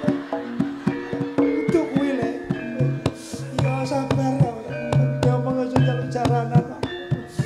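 Javanese gamelan playing, with many quick hand-drum strokes over ringing metallophone notes and steady low gong tones.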